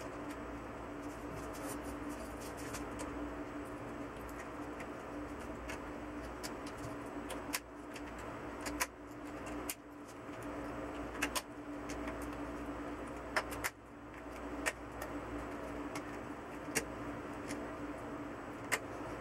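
Plastic reflector sheet of a TV's LED backlight being handled and pressed into place over the LED strips in the metal back tray: scattered light clicks and taps, about a dozen, over a steady background hum.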